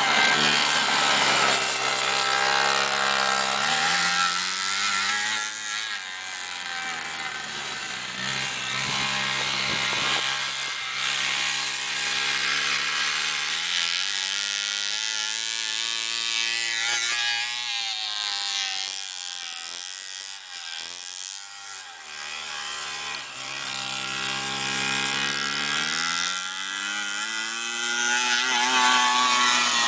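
Small two-stroke engine of a modified 60cc Arctic Cat Kitty Cat mini snowmobile running hard, its pitch rising and falling several times as it accelerates, eases off and passes back and forth. Its clutch is going out, so it is slow to take off.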